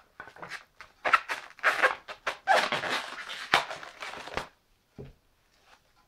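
Plastic cling film crinkling and rustling in a run of noisy bursts as it is unrolled and pressed over a plate, stopping about four and a half seconds in, followed by a single soft knock.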